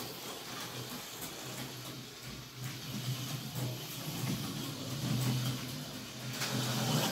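An HO slot car (a Dodge Viper on an Autoworld chassis) running laps, its small electric motor whirring. The whir swells and fades as the car goes round the track, loudest about five seconds in.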